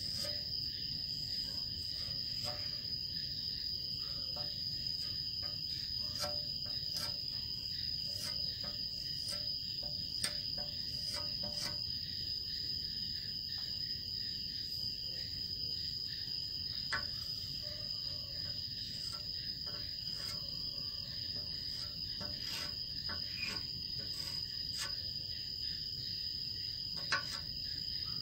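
A cricket trilling steadily in one high, unbroken tone, with faint scattered ticks of chalk on the board.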